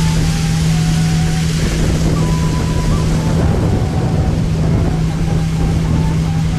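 Tiller outboard motor on a small jon boat running at a steady pitch under way, with a rushing noise of wind and water that swells in the middle.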